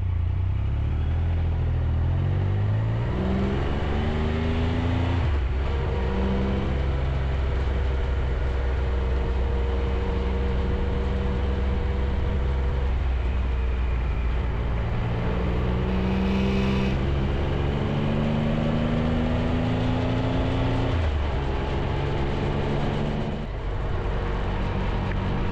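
Triumph Tiger 1200 motorcycle engine under way and accelerating, its pitch climbing and then dropping at gear changes, about five seconds in and again near the end. Steady wind and road noise from riding runs underneath.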